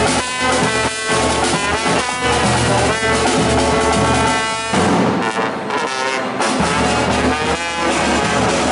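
Upbeat music with horns playing over a steady beat; the bass drops out briefly about five seconds in.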